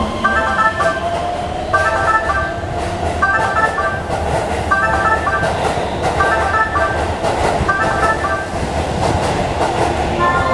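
Keihan Series 3000 electric train running past a station platform with a steady rumble of wheels and running gear. Over it, a platform warning chime repeats a short electronic melody about every second and a half, signalling a passing train.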